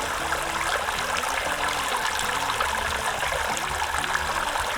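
Water sprinkling steadily from a homemade watering can, a plastic container pierced with holes, falling in a shower-like spray.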